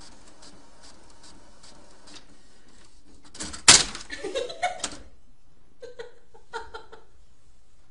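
Inkjet printer printing: the print head ticks steadily about two or three times a second, then about three and a half seconds in a loud clack and a burst of feed-mechanism noise as the printed page is pushed out, followed by a few softer clicks.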